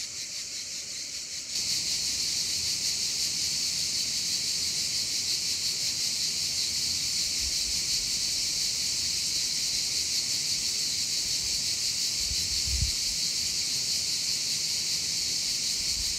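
A steady, high-pitched buzzing chorus of insects that grows louder about a second and a half in, with a few soft low thumps.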